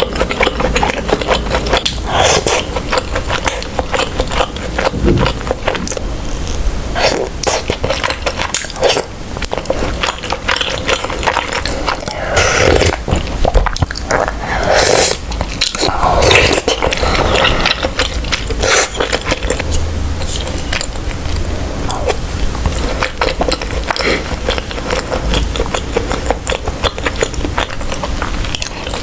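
Close-miked eating sounds of tteokbokki with potato dumplings: chewing, wet mouth sounds and slurping, mixed with scrapes and clicks of utensils against the dish.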